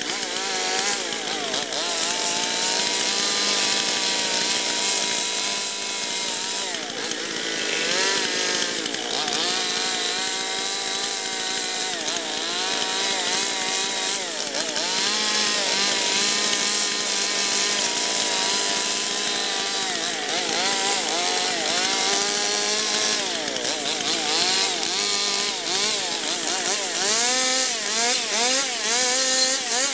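Stihl two-stroke chainsaw cutting into wood, its engine pitch repeatedly rising and falling as the chain bites and eases off.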